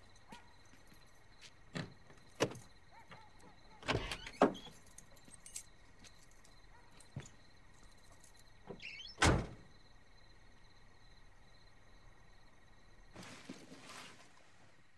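A car door: a few sharp clicks and knocks in the first five seconds, then a single heavy slam shut about nine seconds in. Crickets trill steadily and faintly underneath.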